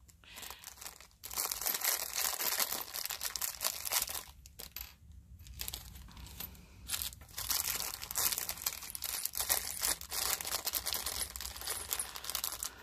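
Small clear plastic bag of teddy-bear safety eyes and noses crinkling and rustling as it is handled, on and off in bursts with short pauses.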